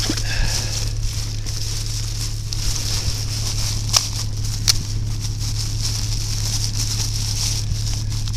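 Plastic trash bags rustling and being pushed down into a hitch-mounted cargo carrier, with a couple of sharp clicks about four seconds in, over a steady low hum.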